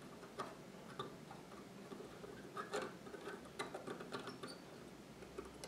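Faint, scattered light clicks and short scrapes of a steel scribe's point working against a metal washer as a toy train wheel hub is soldered, a handful of small ticks spread irregularly through.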